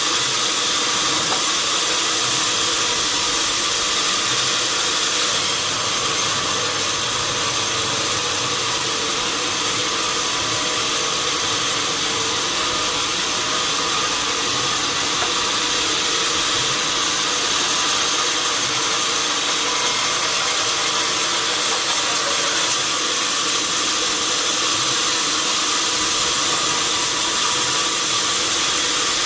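Sawmill machinery running steadily, a loud even hiss-like noise with a faint steady hum under it and no distinct cuts or impacts.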